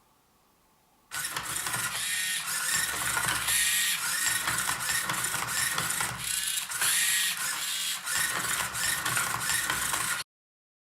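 Hobby servo motors of a small 3D-printed Rubik's cube robot whirring in quick moves, with plastic parts clacking as the cube is flipped and its layers turned. It starts about a second in and cuts off abruptly near the end.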